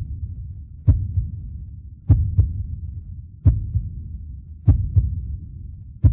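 Slow heartbeat-like pulse: paired low thumps, a strong beat followed by a softer one, repeating about every 1.2 seconds over a steady low rumble.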